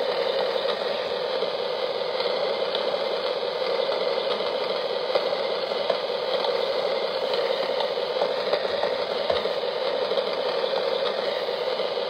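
Steady rain: an even hiss of falling drops with many small ticks running through it.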